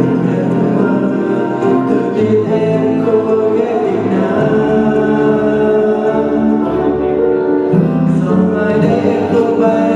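A young man singing a Vietnamese song into a handheld microphone over a musical backing track.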